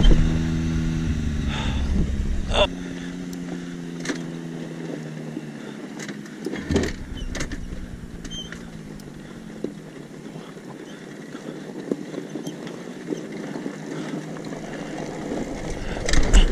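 An engine runs steadily for the first couple of seconds and then cuts off abruptly. After that the ATV rolls over a gravel trail with tyres crunching and scattered clicks and rattles. A loud engine starts up again near the end.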